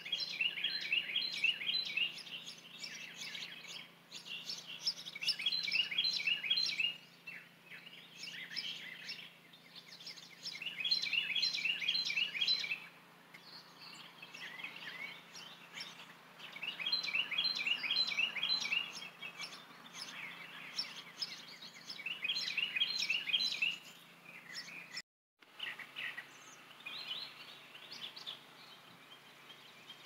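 Songbirds singing outdoors: phrases of rapid high chirping notes, each a couple of seconds long, repeated every few seconds with short pauses between.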